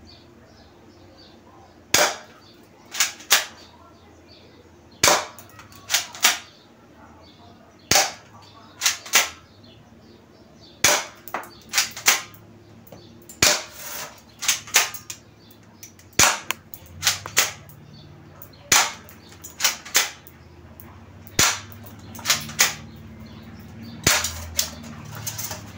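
Vigor V301 full-metal airsoft pistol fired nine times at a CD. The sharp snaps come in quick groups of two or three, where the shots mix with the clicks of working the pistol and the BBs striking the disc.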